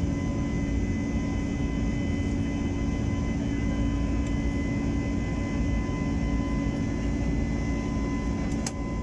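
Steady jet engine and airflow noise inside an airliner cabin during the climb after takeoff: an even low rumble with a steady hum through it. A short click sounds near the end.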